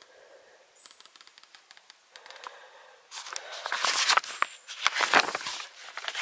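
A printed paper sheet rustling and crackling as it is handled close to the microphone. It is faint at first, with a few light clicks, then turns loud and irregular about three seconds in.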